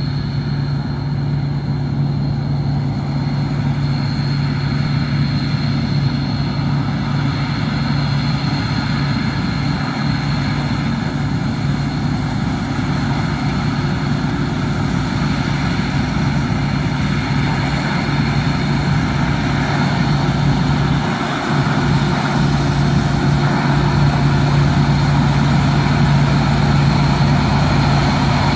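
Steady machine running: a constant low hum with a faint high whine over an even noise. It gets slightly louder about three quarters of the way through.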